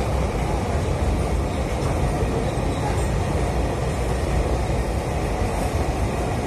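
Container freight train's loaded flat wagons passing at full speed: a steady noise of steel wheels running on the rails.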